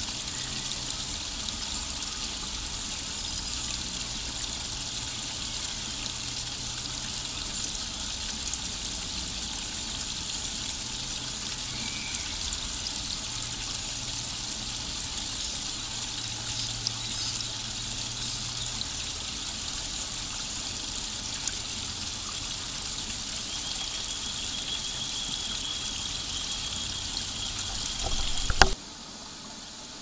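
Small ornamental garden waterfall splashing and trickling over stone ledges in a steady rush. Near the end it swells briefly with a knock, then cuts off suddenly.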